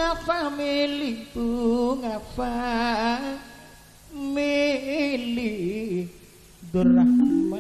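Solo voice singing a slow, heavily ornamented melodic line with wavering, sliding pitch, in the style of Madurese gamelan song. The voice drops away briefly about four seconds in and again near the end.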